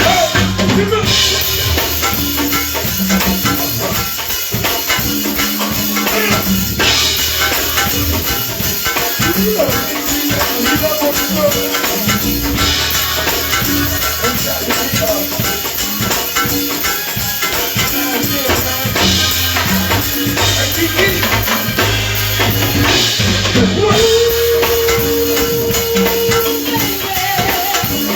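Live band playing an instrumental stretch: drum kit, bass and shaker-like percussion keeping a steady groove, with a held melodic note a little before the end.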